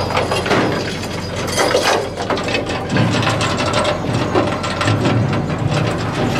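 Stern trawler's net gear running over the stern: a dense, continuous rattle and clatter of chain and rigging, over the low hum of the boat's machinery.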